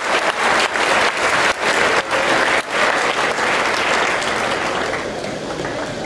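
Crowd applauding in a gymnasium, the clapping dying down about five seconds in.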